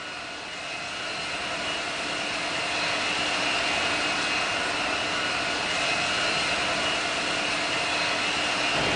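Steady jet engine and airflow roar of aircraft in flight, with a thin high whine. It grows louder over the first three seconds, then holds steady.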